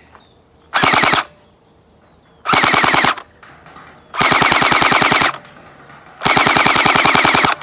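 Wells G36C electric gel ball blaster firing on fully automatic in four bursts. Each burst is a rapid, even rattle of shots lasting about half a second to just over a second. The bursts come about a second and a half apart, the last two longer than the first. It cycles steadily with no misfires.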